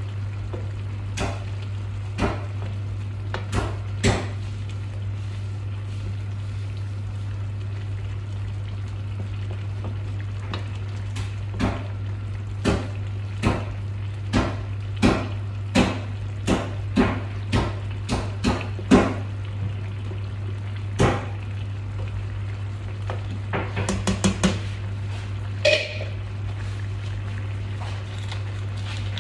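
Wooden spatula knocking and scraping against a stainless steel frying pan as thick curry is stirred: a string of short sharp taps, thickest in the middle and again near the end. A steady low hum underneath.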